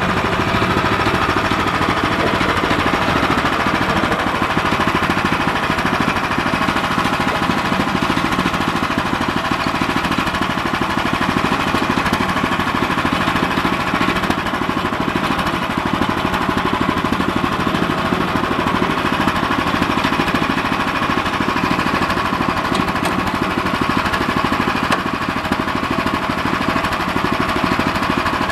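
Gas-engine band sawmill running steadily under load, its blade sawing through a soft pine log, with the engine's rapid firing pulses over an even, unchanging level.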